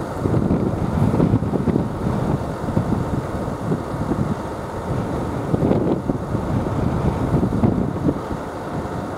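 Wind buffeting the microphone: a gusty low rumble that swells and eases irregularly.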